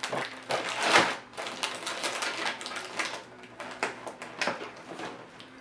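Crinkly metallic plastic snack bag crackling and rustling in hand, a quick run of short crackles, loudest about a second in and growing fainter and sparser toward the end.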